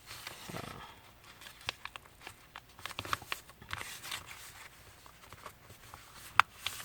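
A sheet of paper being handled, folded and creased by hand: scattered crinkles and sharp crackles, with one louder snap a little before the end.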